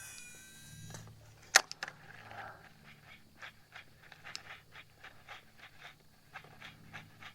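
A baitcasting reel's spool whirring out on a cast, its whine falling in pitch and fading within the first second, then a sharp click. After that comes the reel being cranked on the retrieve: faint, even ticking at about three a second over a low steady hum.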